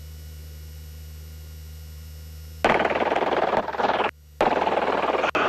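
Helicopter crew intercom: a steady low hum of the helicopter, then two loud bursts of rough, fast-chopping wind and rotor-wash noise on an open crew microphone, each over a second long, the first starting about halfway through.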